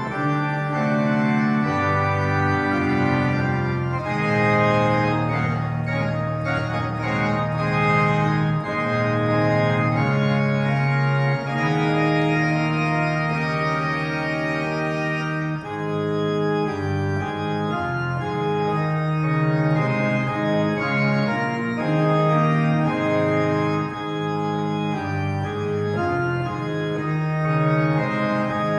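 Church organ playing a slow piece of held chords that change every second or two over a moving bass line, the closing voluntary at the end of the service.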